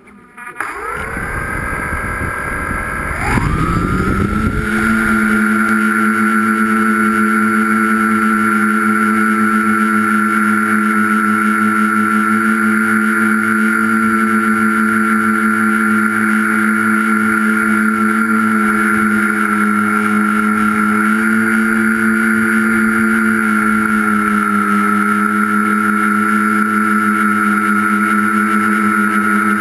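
A tricopter's three electric motors and propellers spinning up from rest, the pitch rising in two steps over the first few seconds as it lifts off. Then a steady, loud, buzzing whine in flight with small shifts in pitch, heard from the camera on board.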